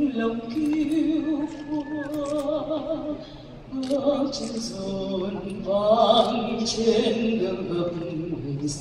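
A woman singing a national anthem solo, holding long notes with a wavering vibrato.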